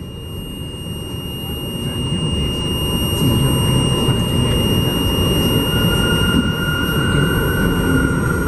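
R62A subway car rumbling along elevated track through a curve, growing louder about three seconds in, with a steady wheel squeal setting in about halfway through. Over it runs the car's steady, high-pitched emergency alarm tone, set off by a lifted emergency brake cover, which cuts off near the end.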